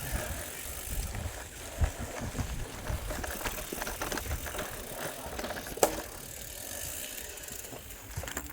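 Bicycle being ridden, with wind buffeting the microphone and the bike rattling and clicking; one sharper click comes a little before six seconds in.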